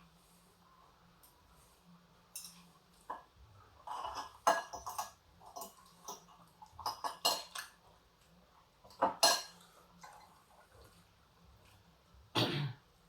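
Cutlery clinking and scraping against a plate during a meal: short, scattered knocks, bunched into clusters.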